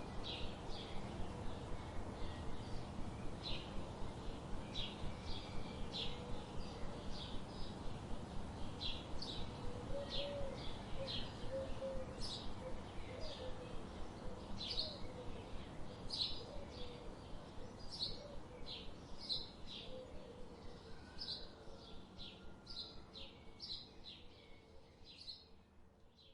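Small songbirds chirping, many short, sharp high chirps in quick succession over a steady background hiss, fading out near the end.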